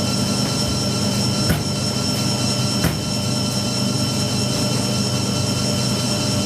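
IPSO 25 lb commercial washing machine running in its spin cycle: a steady hum and whine. Two short clicks come about a second and a half and about three seconds in.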